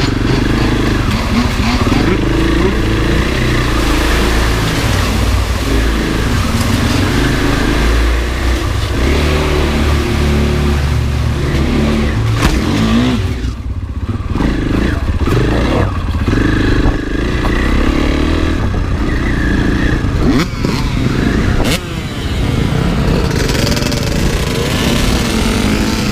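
Husqvarna FE 501 enduro dirt bike's single-cylinder four-stroke engine running under load on trail, revving up and down continuously as the throttle is worked, with brief drops as the throttle closes around the middle and again later.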